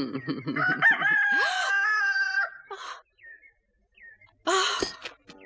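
A man groaning in pain, then a rooster crowing once: a long call that rises at the start and is then held. A short, shrill cry comes near the end.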